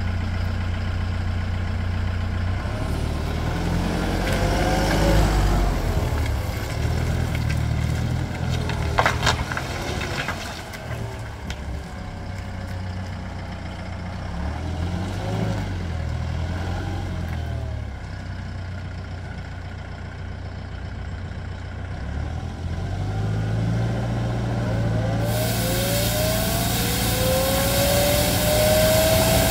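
Schmidt Swingo 200+ compact street sweeper's diesel engine running as the machine drives, its speed rising and falling. Near the end a rising whine comes in, with a hiss over it.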